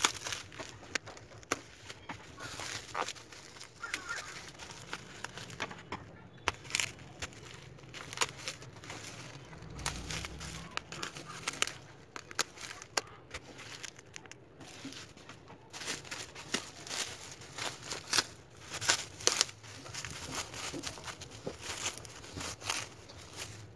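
Plastic bubble wrap crinkling and crackling in irregular sharp clicks as it is handled and cut open with scissors.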